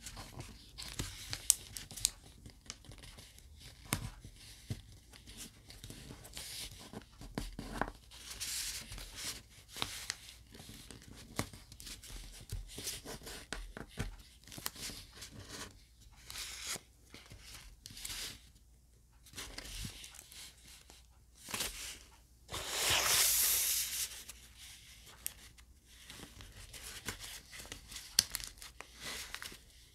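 Origami paper crinkling and rustling under the fingers as it is folded and the creases pressed flat: many short scrapes and small clicks, with one longer, louder rustle a little over two-thirds of the way through.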